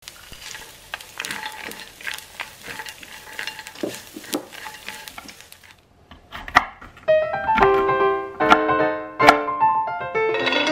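Small dried anchovies sizzling and crackling as a wooden spatula stirs them with garlic and green chili in a frying pan. About six seconds in, a knife chops mixed nuts on a wooden cutting board in a few sharp chops, under piano music.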